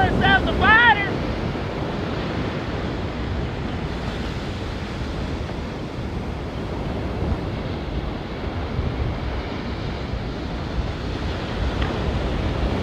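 Ocean surf breaking on the beach with wind buffeting the microphone, a steady rushing noise. A few short, arching bird calls come in the first second.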